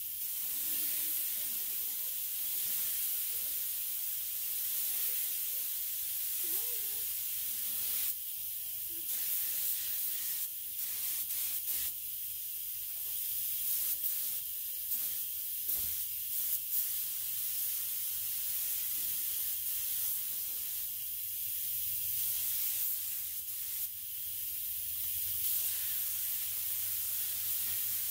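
Neiko 31207A HVLP mini gravity-feed spray gun hissing steadily as it sprays automotive base coat, with a faint low hum underneath.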